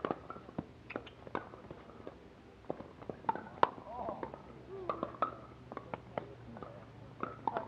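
Pickleball paddles striking the hard plastic ball during play: a string of sharp pops, more than a dozen, at uneven spacing.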